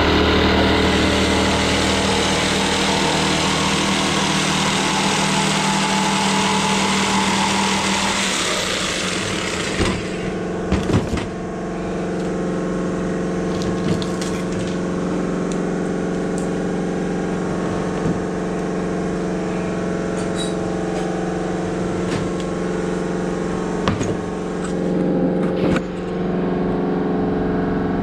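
Corded Makita jigsaw running and cutting through a wooden door panel, a loud, dense noise that stops suddenly about nine and a half seconds in. A steady low mechanical hum runs underneath throughout, and after the cut there are scattered knocks and clatter as the cut-out piece is handled.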